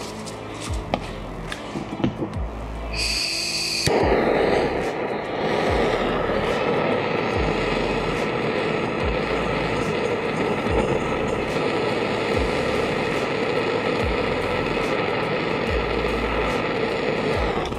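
A handheld butane torch: a few light clicks and taps of handling, a short sharp hiss as it lights about three seconds in, then the steady hiss of the flame burning on kiln-dried oak chips in a cocktail smoker. The flame stops near the end.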